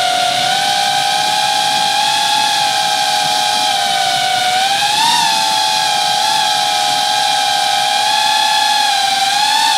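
FPV cine drone's motors and propellers whining steadily in flight. The pitch dips and rises with the throttle, climbing briefly about halfway through and again near the end.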